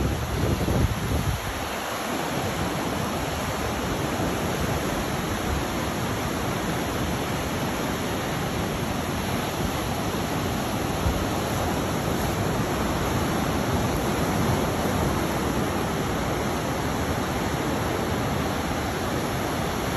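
Steady wash of ocean surf breaking on a rocky shore, an even hiss with no pauses, with a low rumble in the first second or so.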